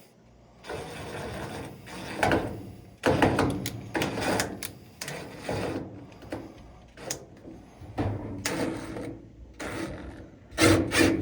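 Power drill driving Phillips head screws into the dryer's sheet-metal top panel, its motor running in several short bursts with pauses between.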